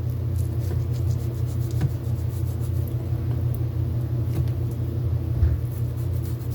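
A steady low rumbling hum, with a few faint light ticks of a knife working against a cutting board as fat is trimmed from a raw chicken breast.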